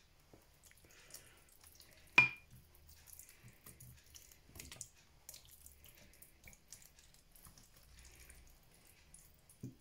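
Faint wet dabbing and squelching of a silicone pastry brush spreading marinade over a raw whole chicken, with one sharp ringing clink of the brush against the dishware about two seconds in.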